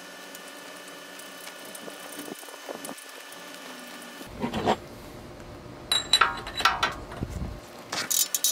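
Light metal clicking and clattering of a spark plug socket and extension bar being handled and fitted over a small engine's spark plug, in short clusters through the second half. A faint steady hum runs underneath.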